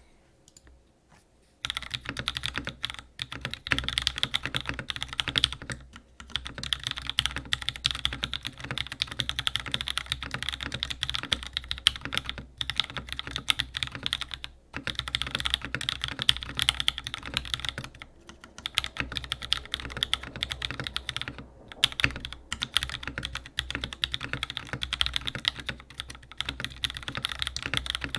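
Steady fast typing on a Smith and Rune Magnus175 mechanical keyboard with a brass middle frame, fitted with JWICK Black linear switches and GMK keycaps on an aluminium plate, top-mounted with cork dampening. The typing starts about a second and a half in and pauses briefly now and then.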